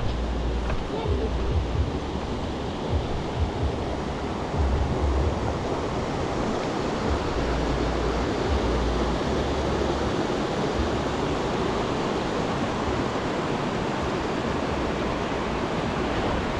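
Steady rush of fast-flowing river water, with wind buffeting the microphone in low gusts through roughly the first half.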